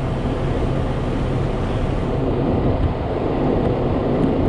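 Semi truck's diesel engine idling steadily close by, a low even rumble.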